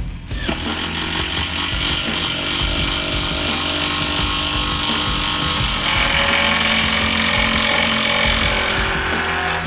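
Cordless impact driver hammering as it drives long batten screws into dense laminated veneer lumber, a continuous rattling run with a change in tone about six seconds in.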